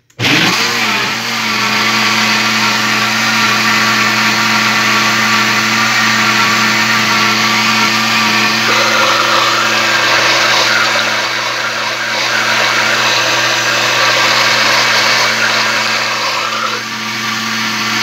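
Walita Master Pro blender motor switched on, climbing to speed within about a second, then running steadily at high speed as it purees a thick batter of whole jabuticabas, seeds and all. About nine seconds in the sound turns rougher and noisier.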